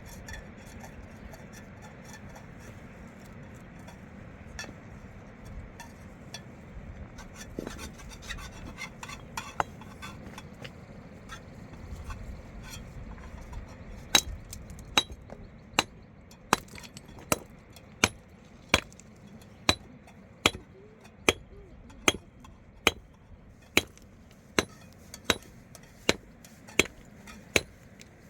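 A hand tool striking hard again and again at a steady pace, a little more than one blow a second, starting about halfway through. Before that there are only scattered light clinks and knocks.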